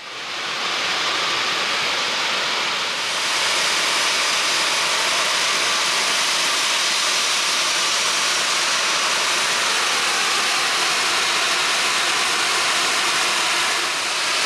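Iron ore pellets pouring down a lowered ore dock chute into a lake freighter's cargo hold: a steady, unbroken rushing hiss that grows a little brighter about three seconds in.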